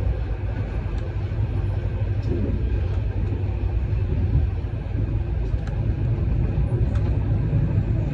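Steady low rumble of a road vehicle in motion.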